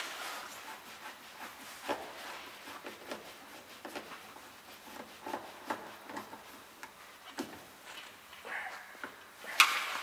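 Small, irregular clicks and scrapes of a screwdriver turning the exterior door handle's retaining screw back into the end of a car door, with a sharper click near the end.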